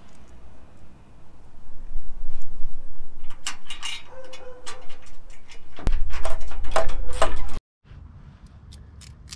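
Irregular clicks, knocks and rattles of headlight mounting parts being handled and pressed into place in a headlight housing. They grow busier from about two seconds in and cut off suddenly near the end.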